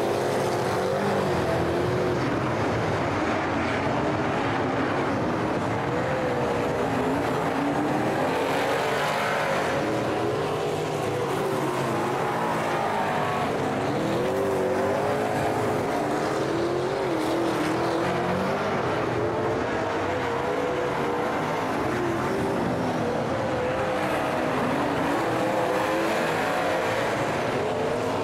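Several V8 super saloon race cars lapping a dirt speedway oval, their engines running hard and rising and falling in pitch without a break.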